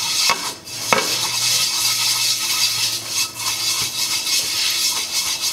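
Bristle brush rubbing oil across a flat frying pan, a steady rasping scrub, with a light knock on the pan about a second in.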